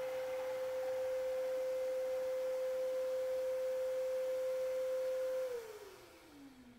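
Benchtop table saw running free with a steady whine. It is switched off about five and a half seconds in, and the pitch falls as the blade coasts down.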